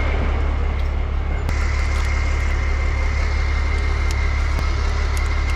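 Bucket truck's engine idling with a steady low hum. A steady high whine comes in about a second and a half in, and a few faint clicks sound over it.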